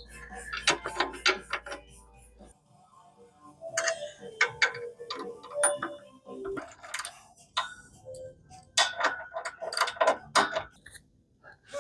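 Irregular metal clicks and clinks of hand tools working on a reel mower's drive shaft and sprocket, some ringing briefly.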